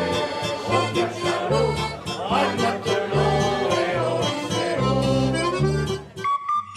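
A vocal group singing a folk song to keyboard accompaniment with an alternating bass line. About six seconds in the music cuts abruptly to a different, chiming tune.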